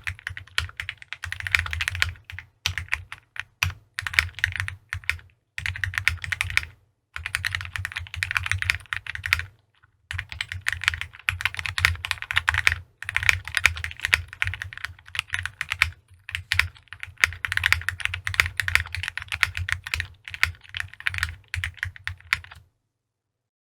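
Typing on a tray-mounted Corgi60 mechanical keyboard with a polycarbonate case, FL-Esports Ice Mint linear switches and GMK Godspeed keycaps. Rapid runs of keystrokes come with short pauses between them, and the typing stops near the end.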